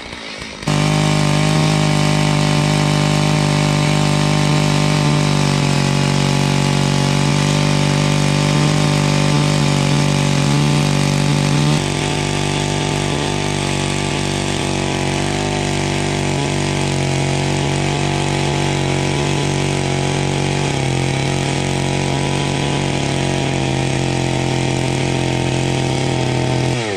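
Holzfforma G660 two-stroke chainsaw engine running steadily under load, driving a Lewis capstan winch that is pulling a stuck snowmobile out by rope and chain. There is a brief dip in the first second and a slight drop in level about twelve seconds in.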